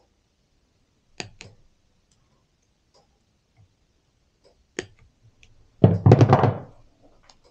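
Hand tools working stainless-steel wire on a hose clamp: a few sharp clicks and knocks, with a louder clunk about six seconds in.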